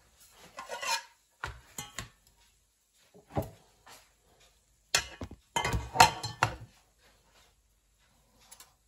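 Kitchenware clattering and knocking as it is handled: a few short knocks and rattles in the first two seconds, a single knock about three and a half seconds in, and the loudest run of clatter from about five to six and a half seconds in.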